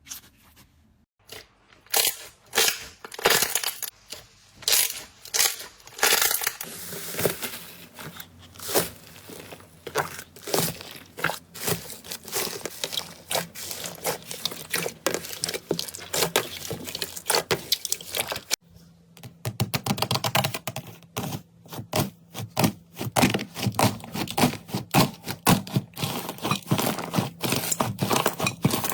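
Slime being squeezed and pressed by hand, giving dense, irregular sticky crackles and pops. The sound changes abruptly about two-thirds of the way through.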